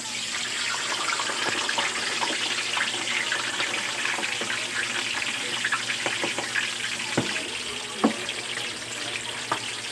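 Pork neck pieces deep-frying in a wok of hot oil: a steady sizzle full of small crackles, with two louder pops near the end. The pork skin is crisping and close to done.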